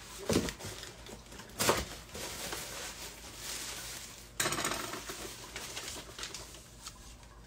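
A cardboard box being handled and opened, with a few sharp knocks early, then plastic air-pillow packing crinkling and rustling as it is pulled out of the box, starting suddenly about four and a half seconds in.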